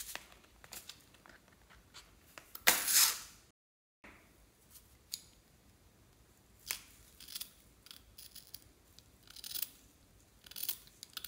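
Small scissors snipping into a pink balloon, a series of short, crisp snips spaced out unevenly. About three seconds in comes a louder, longer rasping burst.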